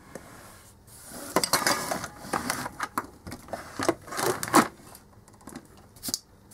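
Hand tools and small parts being picked up and gathered off a work mat: irregular clinks, knocks and rustling, loudest about a second and a half in and again near four and a half seconds.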